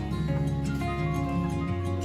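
Background instrumental music with held notes, the bass shifting to a new note near the end.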